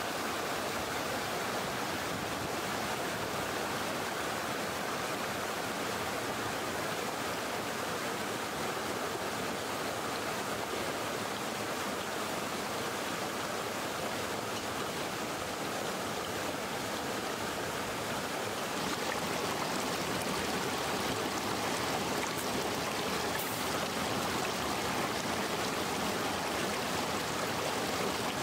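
A shallow stream rushing over rocks in small cascades, a steady splashing flow of water.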